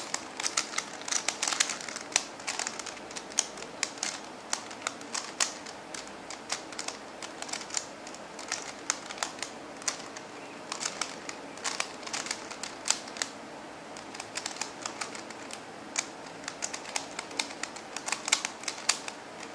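QiYi MoFangGe Master Pyraminx, a stickerless plastic twisty puzzle, being turned by hand: its plastic pieces click as the layers turn, in irregular quick runs of clicks with short pauses between them.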